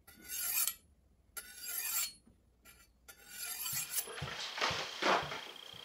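Chef's knife being honed on a steel rod: three long scraping strokes of the blade along the steel, each under a second, with short pauses between.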